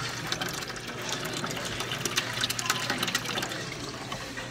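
Water running and splashing in a plastic tub fed by pipes, with a scatter of sharp clicks and knocks through most of it.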